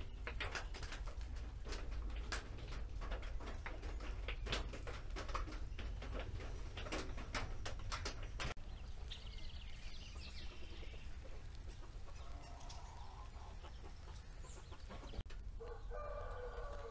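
Chickens clucking and calling, loudest near the end. A run of sharp clicks fills the first half.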